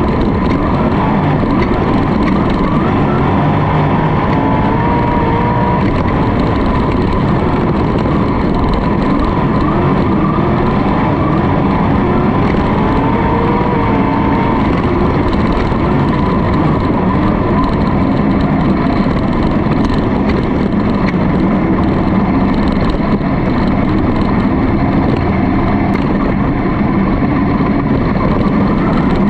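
Sprint car V8 engines at full racing speed heard from an onboard camera, the pitch rising and falling as the throttle comes off and back on through the turns, over a steady rush of noise.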